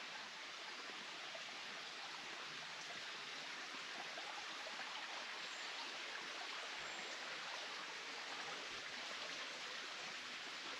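Steady rushing of running water, without a break.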